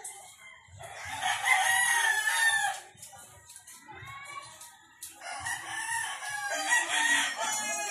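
A rooster crowing twice, each crow about two seconds long, the second one starting about five seconds in.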